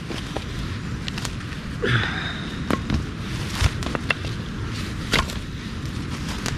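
A handful of light, irregular wooden knocks and clunks as split firewood and a knife are handled after batoning.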